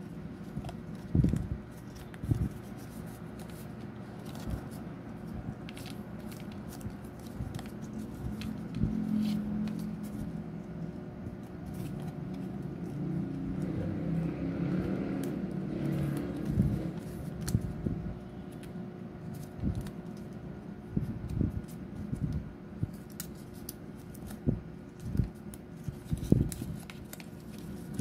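Stiff cardstock puppet pieces being folded and slotted together by hand: scattered taps, clicks and scrapes of card against card and fingers, over a low steady hum.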